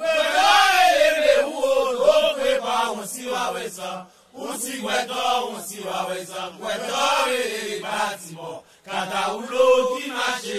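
A Haitian Vodou song for the lwa, chanted by a voice in long melodic phrases whose pitch rises and falls. There are short breaks for breath about four seconds in and again near nine seconds.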